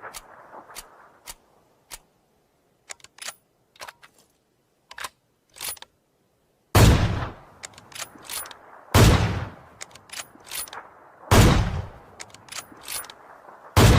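Sniper rifle sound effect: a string of short metallic clicks of the rifle's action, then four heavy shots about two and a half seconds apart, each with a trailing echo, and smaller clicks between them.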